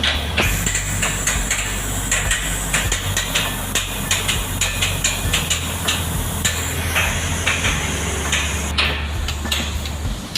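Construction-site noise: repeated, irregular metal hammering strikes over the steady low drone of heavy machinery running.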